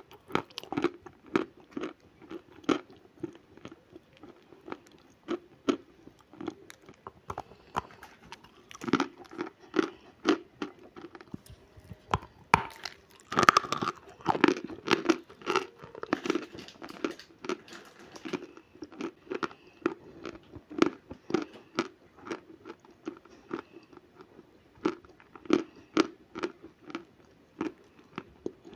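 A person chewing natural chalk: a run of dry, sharp crunches, about two a second, with louder bites about 9 and 13 seconds in.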